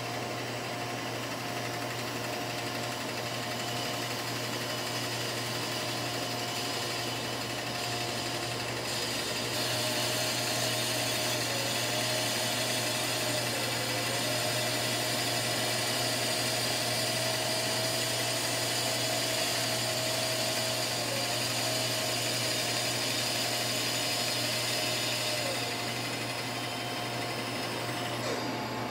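Bandsaw running and cutting a curve through a thick glued-up hardwood board of purpleheart, maple and bloodwood strips. A steady motor-and-blade whine whose pitch dips briefly a few times as the blade is fed into the wood.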